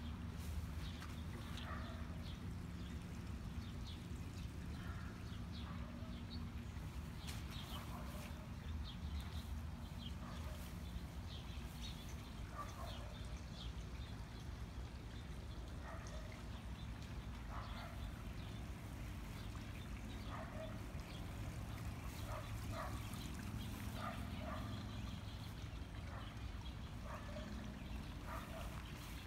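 Outdoor garden ambience: short bird calls come every second or two over a low steady rumble.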